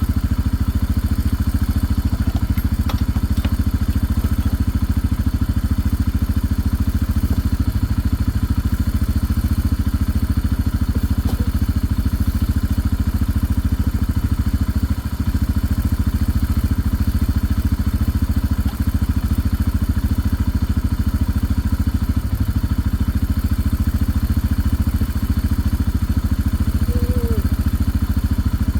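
A vehicle engine running steadily, a low even drone that holds throughout, with a faint short chirp near the end.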